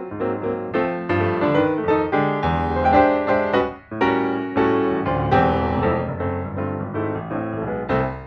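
Background piano music: a quick, even run of notes that dies away at the very end.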